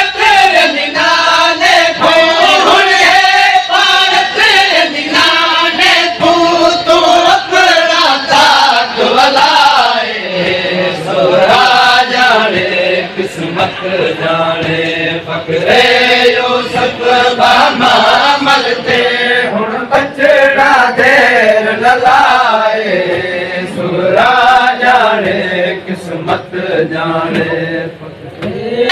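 Men's voices chanting a noha, a Shia lamentation: a lead reciter sings the verses and the group of men joins him in unison, with chest-beating (matam) strikes under the chant.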